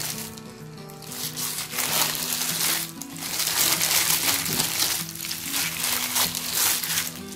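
Wet squelching and plastic-glove crinkling as a gloved hand tosses and kneads marinated pork ribs in a steel bowl, in irregular strokes that get busier after the first second or two. Background music with a simple melody plays under it.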